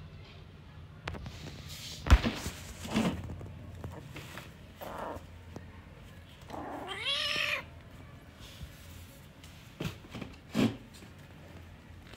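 A kitten meows once, a drawn-out call that rises and falls about seven seconds in. Around it come several short thumps and rustles as it pounces on a cushion and plastic bag, the loudest a sharp thump about two seconds in.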